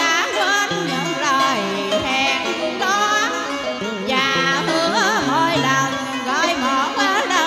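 A woman singing a Vietnamese tân cổ song through a microphone, in wavering, ornamented lines over a karaoke backing track.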